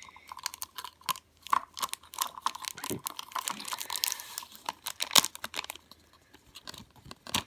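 Plastic slime-powder packet crinkling and tapping as the powder is poured out into a small plastic tub: a rapid run of small clicks and rustles that thins out about five seconds in.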